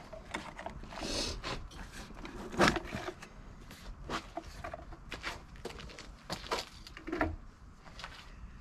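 Stock plastic intake tubing being worked loose and lifted out of an Audi S5's engine bay: scattered knocks, clicks and rustles, with one louder clunk about two and a half seconds in.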